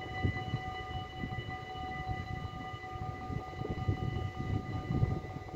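Dutch level-crossing warning bells ringing steadily as the half-barriers lower, over an uneven low rumble.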